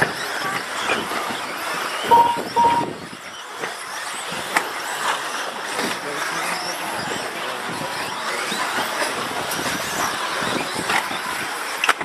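Radio-controlled racing cars running laps around a track: a continuous noisy hum of motors and tyres with scattered short spikes. Two short beeps about two seconds in.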